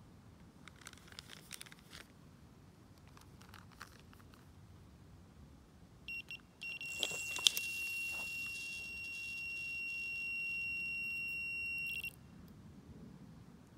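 Electronic carp bite alarm going off. It gives two short beeps, then one continuous high tone for about five seconds as a fish runs with the bait, and it cuts off suddenly when the rod is lifted. There is a sharp knock partway through.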